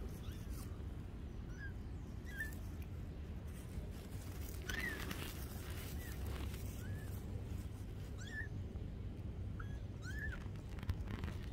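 Kittens mewing: about ten short, thin, high-pitched mews, each rising and falling, spaced a second or so apart, over a steady low rumble.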